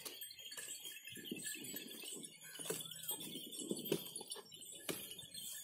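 Small goat bells tinkling faintly and irregularly as a herd of goats moves and grazes.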